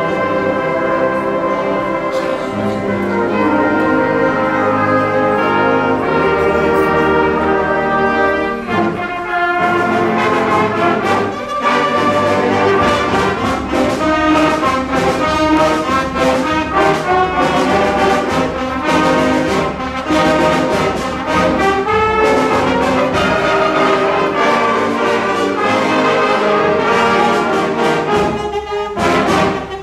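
Student concert band of woodwinds and brass, including trombones and trumpets, playing together. Held chords give way about nine seconds in to a faster passage of short notes, with a brief break just before the end.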